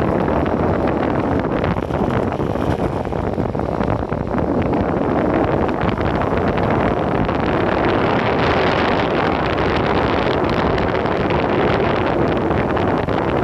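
Loud, steady wind noise buffeting a phone's microphone while riding an electric skateboard at speed.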